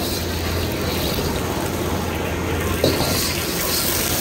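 Liquid sloshing in a carbon-steel wok as a metal ladle is worked through it, over the steady noise of a gas wok burner. About three seconds in, the ladle clanks once against the wok.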